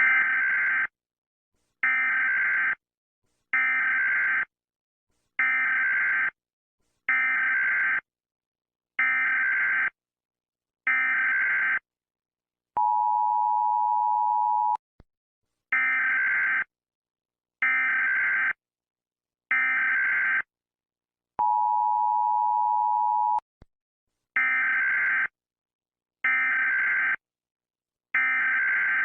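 Emergency alert alarm: a harsh electronic beep about a second long, repeating roughly every two seconds. The beeps are broken twice, about 13 s and 22 s in, by a steady two-tone note lasting about two seconds.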